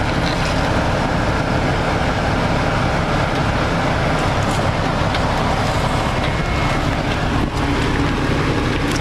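Jeep Grand Cherokee Trailhawk driving along a rocky off-road trail: a steady, loud low rumble with a few small scattered knocks.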